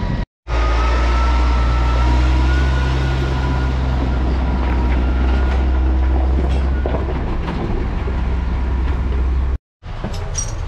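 Tractor engine running steadily close by as it pulls a loaded forage wagon, a deep drone with a faint whine above it. The sound cuts out abruptly near the end.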